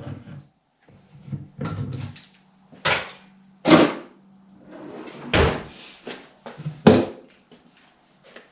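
Woodworking clamps being released and taken off glued wooden panels: a series of sharp clacks and clunks, four of them loudest, with lighter rattles and scrapes between.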